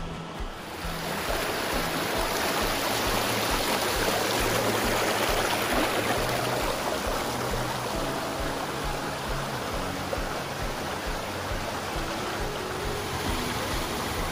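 Creek water rushing and splashing over rocks and small cascades. It swells in about a second in and then runs as a steady rush.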